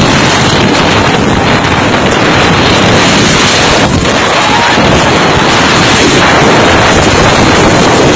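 Storm-force wind with driving rain, the wind blasting straight into the phone's microphone in a loud, steady rush of noise.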